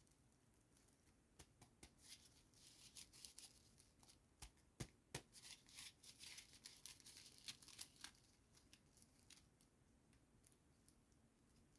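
Faint packaging being handled: soft clicks, snips and crisp rustling for several seconds, then thinning out to a few light ticks.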